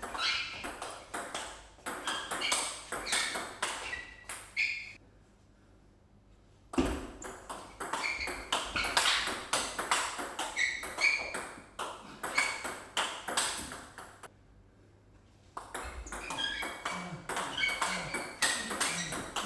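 Table tennis ball clicking quickly back and forth off the rackets and table in fast backhand topspin rallies. There are three rallies: the first stops about five seconds in, the second runs from about seven to fourteen seconds, and the third starts about sixteen seconds in.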